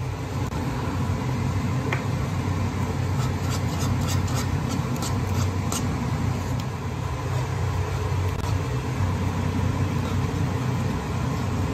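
A metal wire whisk stirring thick cheese sauce in a saucepan, scraping and clicking against the pan, with a quick run of clicks a few seconds in. A steady low hum runs underneath throughout.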